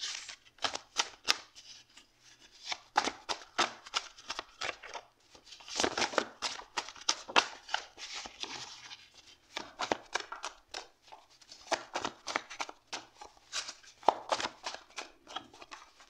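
Stiff paper index cards being handled and shuffled by hand, sliding and flicking against each other: an irregular run of quick papery clicks and rustles, denser in a couple of stretches.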